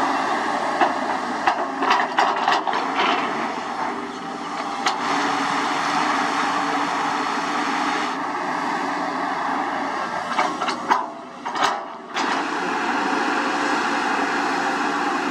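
JCB JS205 tracked excavator's diesel engine running steadily under load as the bucket digs and lifts soil, with scattered knocks and clunks from the bucket and falling dirt in the first few seconds and again around eleven seconds.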